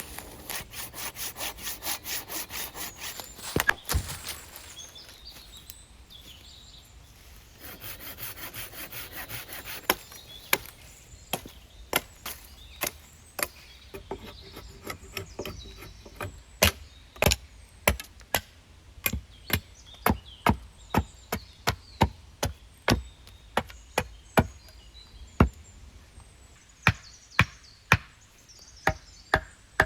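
Wood being cut with a hand saw in quick, even strokes, twice in short spells, followed by a long series of sharp chopping blows on wood, about one or two a second.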